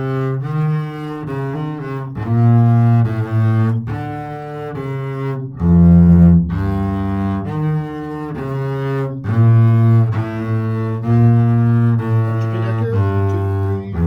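Double bass played with the bow, a steady line of separate sustained notes with short breaks between them: the bass part of an orchestra piece played slowly as a practice demonstration.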